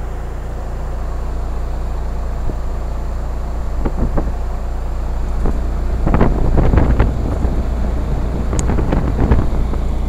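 1988 Heil heat pump outdoor unit running in heat mode: a steady low hum of the compressor and condenser fan, smooth and fairly quiet for its age. A few knocks and rustles come over it, the loudest between about six and seven seconds in.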